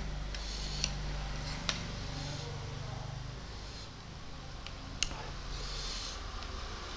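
Close-up eating sounds: chewing and mouth noises from spicy instant noodles, with a few sharp clicks of a metal fork against the plate about a second in, near two seconds and about five seconds in, over a low steady hum.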